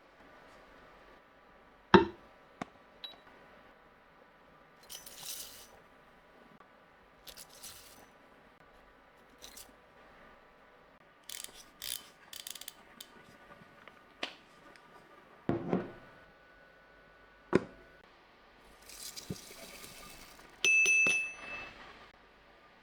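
Kitchenware being handled: a few sharp knocks and clinks, with several short hissing rustles, the loudest lasting about a second near the end, and a brief high tone just after it.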